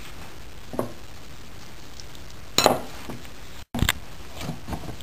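A few separate knocks and clinks of kitchenware, a bowl handled while flour dough is mixed with water, the loudest about two and a half seconds in, with a sudden brief gap near the end.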